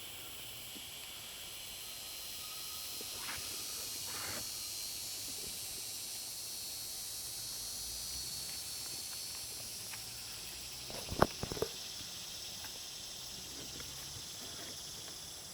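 Steady hiss of a pressure washer's turbo-nozzle water jet spraying onto a turkey skin. A short cluster of knocks comes about eleven seconds in.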